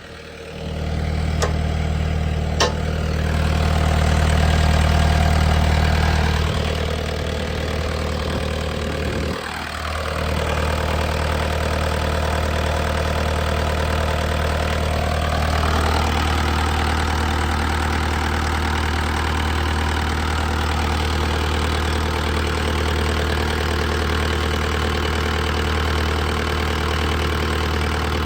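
Bobcat S250 skid steer's Kubota diesel engine running steadily. Its sound shifts a couple of times: about a third of the way in it dips briefly, then it settles again, with another small change a little past halfway.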